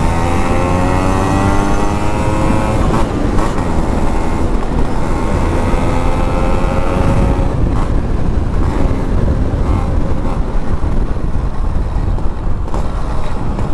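Two-stroke Yamaha RX motorcycle engine accelerating on the road. Its pitch rises, breaks off about three seconds in, then climbs again from lower until about seven and a half seconds. Heavy wind rumble on the microphone runs under it.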